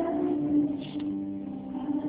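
Slow music with long, steady held notes.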